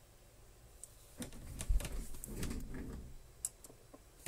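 Light clicks and taps of hands handling small parts and wiring on a wooden workbench, scattered through, with a dull bump and low handling rumble near the middle.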